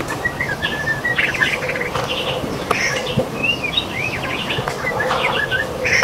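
White-rumped shama singing: a continuous run of quick, varied whistled phrases with rising and falling notes.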